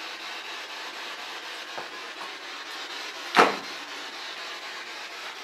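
A single loud thump about three and a half seconds in, over a steady hiss, with two faint clicks shortly before it.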